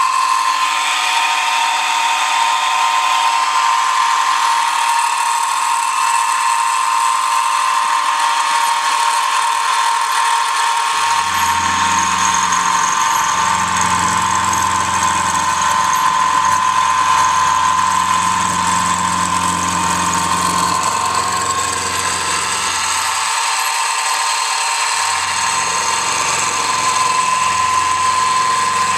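Milling machine running with a steady high whine as the cutter mills a 1/4-inch drill rod blank down to its centre line to form a D-bit. A lower hum joins about eleven seconds in, drops out briefly a few seconds before the end, and comes back.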